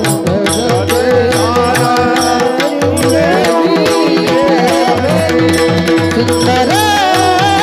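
Devotional Marathi bhajan/kirtan singing: a high, ornamented male voice over steady held drone notes and a hand drum keeping a regular beat of about four strokes a second.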